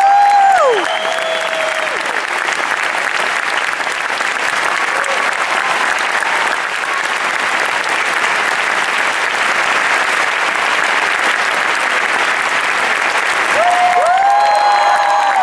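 Theatre audience applauding steadily at a curtain call. A few whooping cheers ring out about a second in and again near the end.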